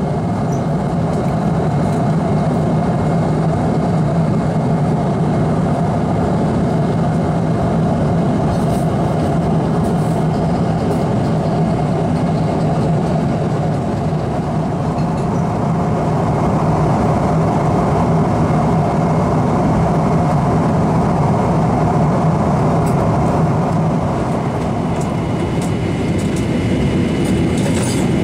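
Steady cabin noise inside a Boeing 777-300ER at cruise: the drone of its GE90-115B turbofan engines blended with the rush of air along the fuselage, heard from a window seat.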